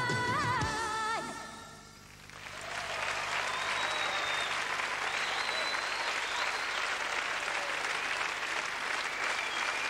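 A pop song's last sung and played notes fading out in the first second or two, then a concert audience applauding steadily.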